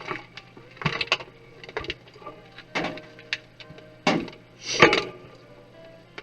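Clicks, knocks and short rattles of desktop PC case parts being handled during disassembly, with the loudest clatter about five seconds in.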